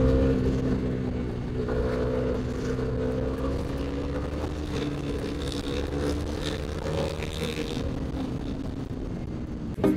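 Bajaj Dominar motorcycle engine running at a steady cruise, its pitch rising and easing a little, with wind rumble on a helmet-mounted microphone.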